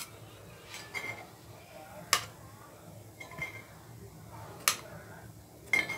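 Metal spoon clicking against a paniyaram pan as finished paniyaram are lifted out of its cells: about five sharp clinks spread roughly a second apart, the loudest about two seconds in and near the five-second mark, a few with a brief metallic ring.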